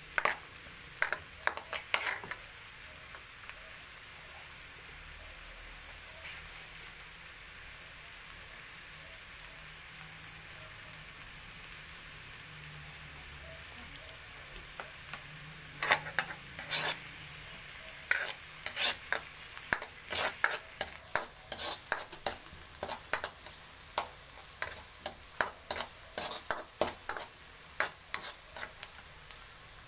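Chopped onion and garlic sizzling steadily in hot oil in a metal wok while being sautéed toward golden brown. A metal spatula scrapes and clacks against the pan a few times at the start, goes quiet for a long stretch, then stirs and scrapes repeatedly through the second half.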